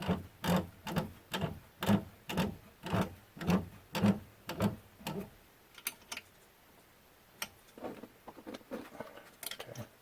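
A hand tool tightening bolts: an even run of sharp clicks, each with a low knock, about two a second, that stops about five seconds in. A few scattered clicks and knocks follow.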